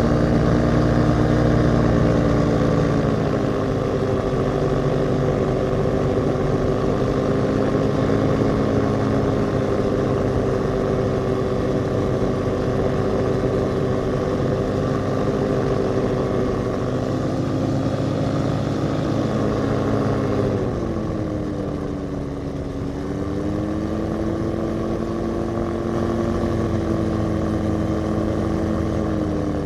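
Rotax 582 two-stroke twin engine and two-blade Warp Drive propeller of a Spectrum Beaver RX 550 ultralight, running steadily in flight. About two-thirds through, the engine pitch drops and the sound gets a little quieter as the throttle is eased back on approach to the runway, then holds at the lower pitch.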